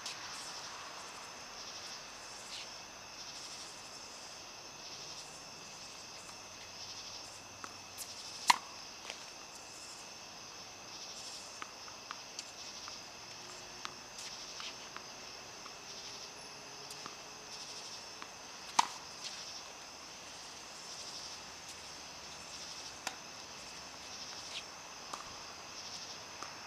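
Steady high chirring of insects, with a few sharp, isolated tennis-ball impacts. The two loudest come about eight seconds in and about nineteen seconds in, with fainter knocks in between.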